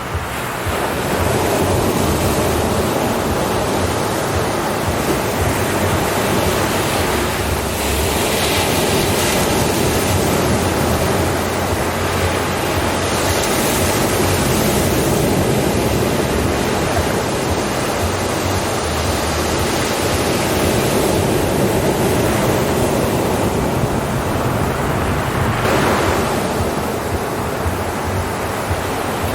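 Ocean surf: a continuous rush of waves, with the wash swelling brighter about eight seconds in and again a few seconds before the end.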